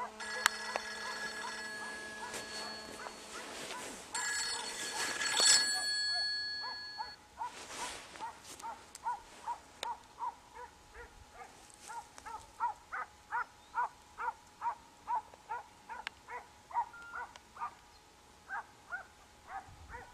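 Scent hounds baying while trailing a hare: short, repeated barks at about two a second. For the first seven seconds a steady ringing tone with overtones sounds over them, loudest about five seconds in.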